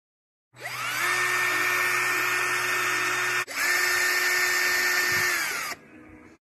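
Compact cordless drill spinning up to a steady whine and running for about three seconds. It stops for a moment, then runs again for about two seconds before winding down.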